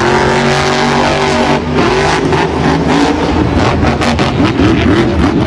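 Monster truck engine sound effect: a big engine revving, its pitch falling and then rising and falling again. It starts and stops abruptly.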